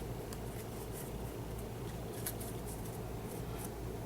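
Faint soft ticks and rustles of baseball trading cards being handled and flipped, a few scattered light clicks over a steady low hum.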